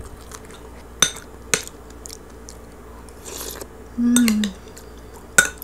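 Close-up eating sounds: sharp clicks of a fork against a plate about a second in and again near the end, a brief crunch of crispy roast pig skin being chewed, and a short hummed 'mm' of enjoyment.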